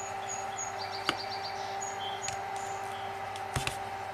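Wire strippers snapping shut on a thin 20-gauge wire, two sharp clicks about a second in and near the end. A steady hum and faint high chirps run in the background.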